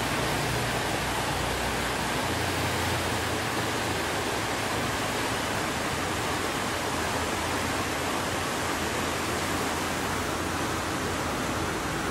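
Flood-swollen stream rushing fast over rocks: a steady, unbroken roar of churning water.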